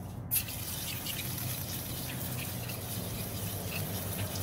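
Steady spraying hiss, starting just after a short click about a third of a second in and cutting off near the end.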